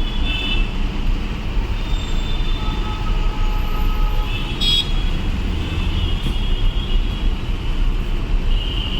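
Busy city road traffic: a steady rumble of engines and tyres, with faint horns of other vehicles sounding now and then and a short click about halfway through.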